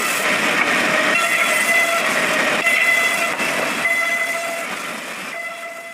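Wood-cutting bandsaw mill running, a steady rushing noise with a high whine that comes and goes; it fades out near the end.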